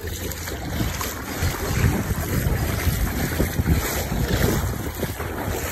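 Wind buffeting a phone's microphone: a loud, gusty rumble that rises and falls unevenly, with no steady tone.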